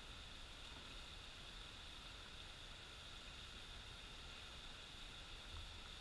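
Faint, steady rush of a small waterfall pouring into a river, with a low rumble underneath.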